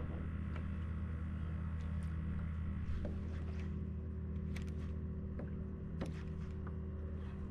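Steady low hum with scattered light clicks and taps.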